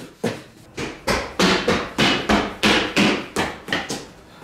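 A rapid run of about a dozen sharp knocks or impacts, roughly three a second, each dying away quickly.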